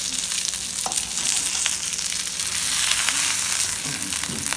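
Masala-coated black pomfret sizzling steadily as it shallow-fries in oil in a pan, being turned to fry the other side.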